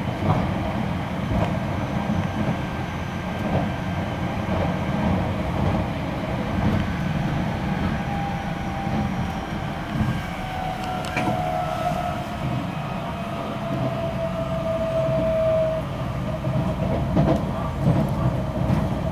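Running sound inside a Keisei new AE series electric train car: a steady low rumble of the wheels on the track, with a high whine that slides down in pitch and cuts off suddenly about three-quarters of the way through.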